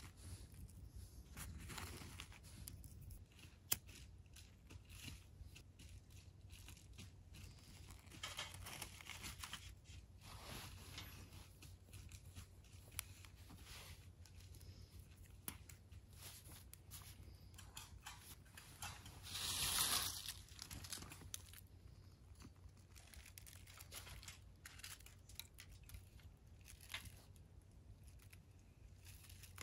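Small wood fire crackling, with scattered sharp pops. About two-thirds of the way through comes a louder rustling hiss lasting about a second.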